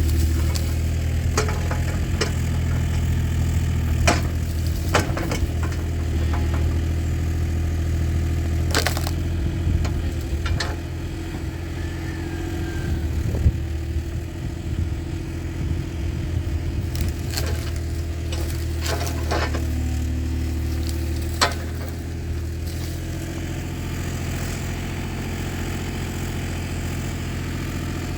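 An engine idling steadily, with scattered sharp knocks and clanks.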